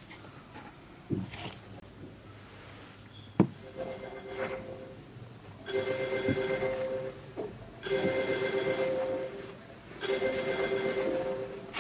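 Background music: sustained synth chords in repeated phrases about a second and a half long with short gaps between them, starting about four seconds in. A couple of sharp taps come before the music.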